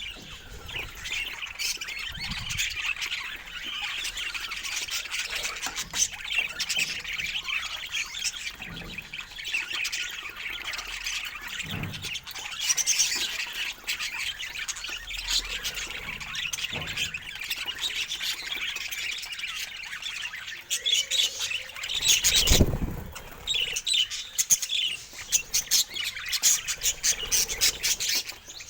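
Budgerigars chattering and squawking: continuous warbling with sharp calls. A short, louder noisy burst comes about three-quarters of the way through, and quick sharp clicks follow near the end.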